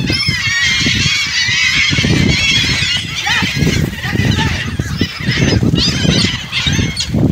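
A flock of birds calling constantly over one another, many wavering calls overlapping, as they crowd in to be fed bread.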